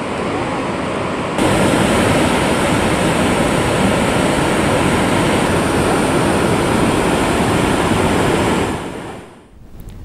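Steady rushing of fast-flowing floodwater, getting louder about a second and a half in and fading out near the end.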